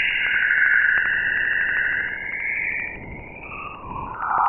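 Jupiter's polar aurora as recorded by NASA's Juno probe and turned into sound: an eerie, wavering hiss that slides up and down in pitch over rapid, evenly spaced clicking, like a horror-film sound effect. It fades down about three seconds in, and a lower, louder band swells in near the end.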